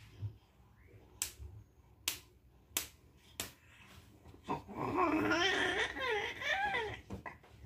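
Snap fasteners on a baby's sleepsuit popping open, four sharp clicks, then a nearly four-month-old baby cooing and babbling in a high, wavering voice for about two seconds.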